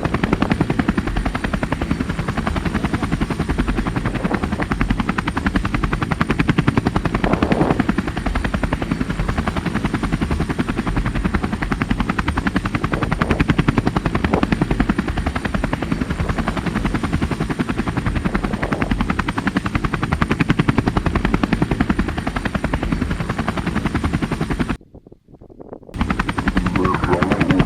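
Helicopter rotor chopping steadily in a rapid, even beat, with a brief break near the end.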